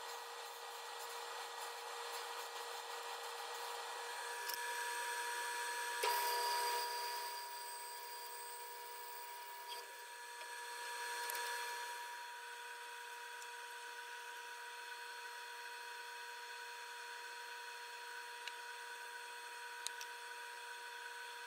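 Faint, steady hum of woodworking power tools with some sawing and rubbing noise of wood. The sound is thin, with no low end, and a little louder for a few seconds near the start.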